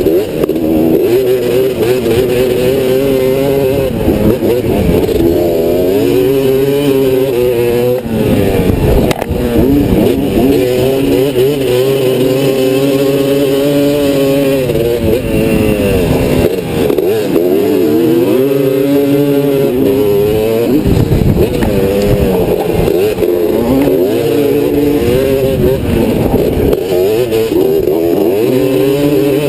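Racing three-wheeler's engine under hard throttle, its pitch climbing again and again and dropping away every few seconds as the rider accelerates down straights and backs off into corners.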